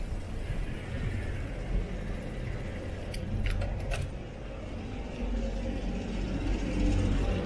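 Riding a Trek cross bike: a steady low rumble of wind and tyre noise, with a short rattle of a few clicks about three seconds in.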